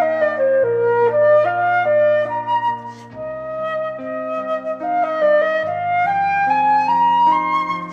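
Background instrumental music: a flute-like melody moving in stepwise notes over sustained low accompaniment.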